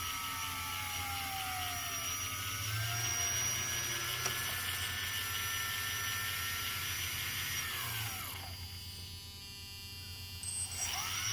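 Tricopter's electric motors spinning up with a rising whine, running steadily, winding down about eight seconds in, then spinning up again near the end, over a steady buzz. The tail servo is jittering and shaking hard, a fault the builder can't yet explain.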